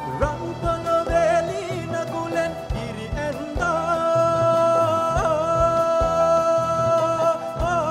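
Live band playing a Sri Lankan folk tune for a dance: steady drum beats under a melody that holds one long note from about four seconds in.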